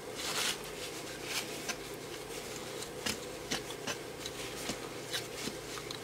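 Paper tissue rubbed and scrubbed over a small circuit board to wipe off solder flux: a run of short, uneven scratchy rustles, the biggest one near the start, over a steady low hum.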